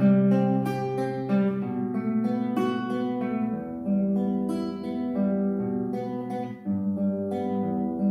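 Solo nylon-string classical guitar played fingerstyle: a melody of plucked, ringing notes over held bass notes.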